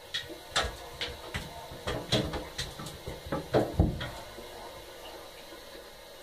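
A cat's paws thumping and scrabbling on the bottom and sides of an empty bathtub as it scrambles about: a run of irregular knocks and thuds that stops about four seconds in.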